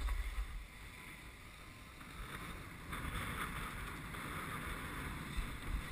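Wind rumbling on a GoPro's microphone while riding down a slope, with the hiss of a snowboard sliding over hard-packed snow. The hiss gets louder about three seconds in.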